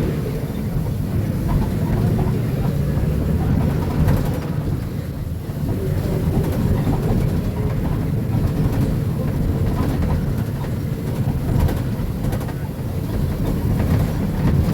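Diesel engine of a Marcopolo Sênior Midi bus on an Agrale MA 15.0 chassis running, a steady low rumble with rattling.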